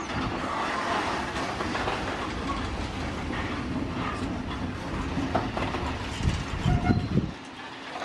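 Bogie hopper wagons of a freight train rolling slowly past, their wheels rumbling and clattering over the rail joints. The knocking gets louder for a moment near the end, then the deep rumble drops away suddenly.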